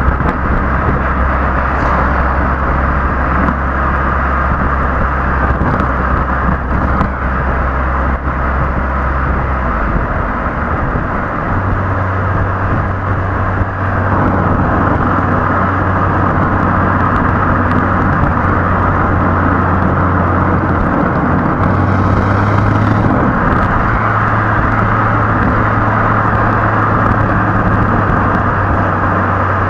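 Stock exhaust of a Hyundai i20 Elite's 1.2-litre four-cylinder petrol engine while the car is under way, heard from beneath the rear bumper with heavy road and wind noise. The low steady drone steps up to a higher steady note about ten seconds in, and shifts again briefly about two thirds of the way through.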